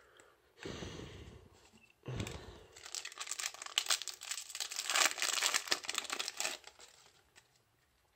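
Foil Yu-Gi-Oh booster pack wrapper being torn open and crinkled: a dense crackling that starts about two seconds in and lasts about five seconds. A shorter rustle comes before it, about half a second in.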